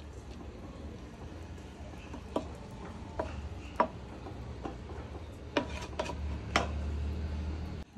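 A spatula stirring basmati rice in a metal pot, knocking against the pot in about six sharp taps, over a steady low hum.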